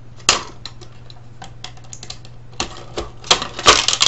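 Plastic and metal clicks and clacks of a small screwdriver and hands working a circuit board loose from a DVD drive's plastic loader frame: a sharp click a quarter second in, scattered ticks, then a quick run of rattling clacks near the end. A low steady hum runs underneath.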